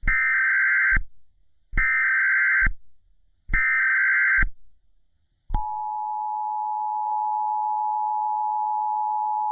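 Emergency Alert System SAME header: three bursts of digital data tones, each about a second long. About five and a half seconds in, the steady two-tone EAS attention signal (853 and 960 Hz) begins and holds.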